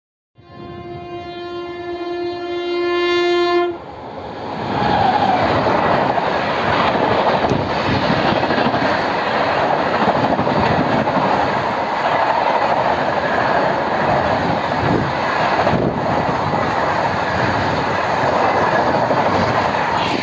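Indian Railways WAP-7 electric locomotive sounding its horn for about three seconds as it runs through, then the loud rush and wheel clatter of its LHB passenger coaches passing at high speed.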